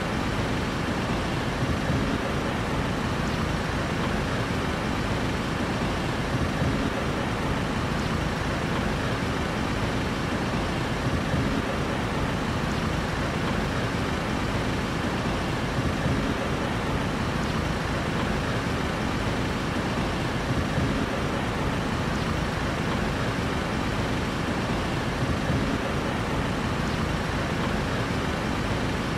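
Steady city street traffic noise: an even low rumble of road vehicles, with no distinct passes, horns or other sudden sounds.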